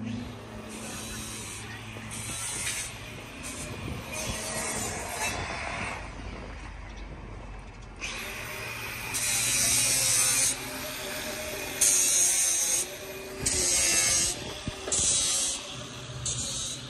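Mechanical clicking and clattering, joined in the second half by a run of five short hisses that start and stop abruptly, like bursts of released air.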